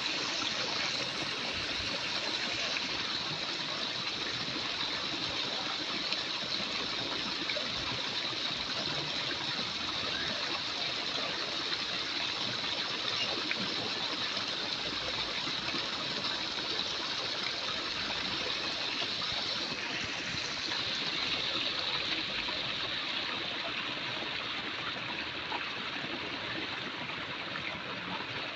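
Steady rushing hiss, like running water, even and unbroken throughout.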